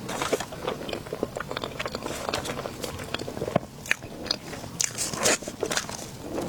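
Close-miked mukbang eating sounds: a person biting and chewing food, with many short crunchy, crackly bites and mouth clicks.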